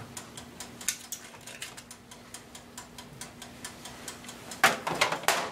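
A toaster oven's mechanical timer ticking steadily and rapidly over a faint low hum. Near the end come a few louder scrapes and clatters of a metal spatula and brush against the foil-lined baking pan.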